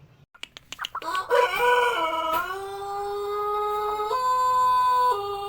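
Pelung rooster crowing: a few sharp clicks, then one long, drawn-out crow that starts about a second in, rises and holds, stepping briefly up in pitch near the end. The Pelung is the Indonesian breed kept for its long, melodious crow.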